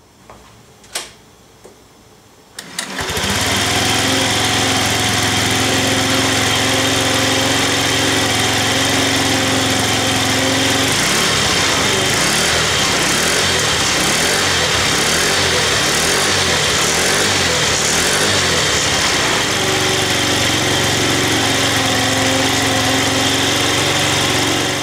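Honda Giorno Crea AF54 scooter's 50 cc four-stroke single starting about three seconds in after a single click, then running steadily; for several seconds in the middle it runs faster before settling back to idle. It sounds essentially healthy, with a little tappet noise left.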